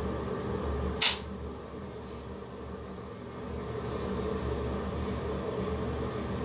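Electric hair clippers buzzing steadily, with a sharp click about a second in; the buzz drops for a couple of seconds afterwards, then comes back.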